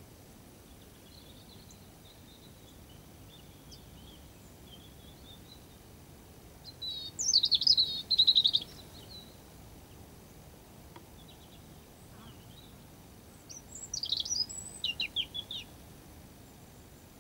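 A small songbird singing two loud song phrases, one about seven seconds in and one about fourteen seconds in, each a rapid high trill of about two seconds. Fainter twittering comes early on over steady outdoor background noise.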